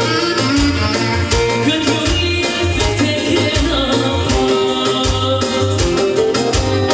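Live Albanian folk dance music with a clarinet playing the melody over a steady drum beat.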